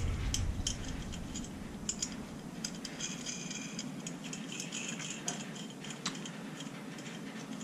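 Light, irregular metallic clicks and ticks of small steel M8 nuts and tools being handled on an engine's cylinder studs, as two nuts jammed together are unlocked and moved to the next stud.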